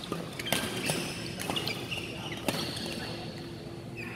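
Badminton rally: a shuttlecock struck by rackets, three sharp hits about a second apart, with short shoe squeaks on the court floor.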